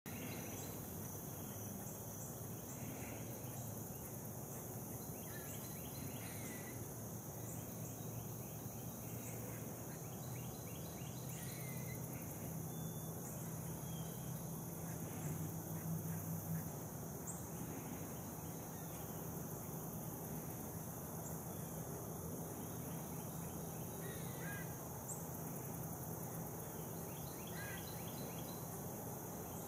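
Quiet outdoor ambience: a steady hiss and low hum with scattered short bird calls and chirps every few seconds.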